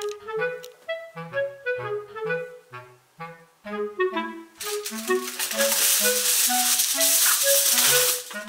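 Background music: a bouncy woodwind melody, like a clarinet, over short bass notes. About halfway in, a loud steady hiss joins it and cuts off shortly before the end.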